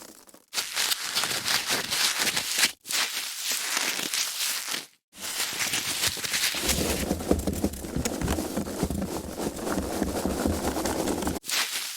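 Foam packaging being handled, squeaking, creaking and crackling in several takes broken by brief silences. About halfway through the handling turns heavier and lower, as if the foam is pressed or rubbed harder.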